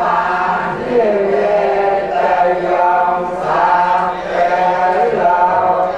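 Buddhist chanting by a group of voices in unison, in long held phrases.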